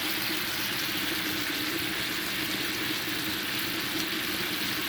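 Chicken thighs with sriracha mayo sizzling steadily in a pan, frying in their own juices over heat just turned down. A steady low hum runs underneath.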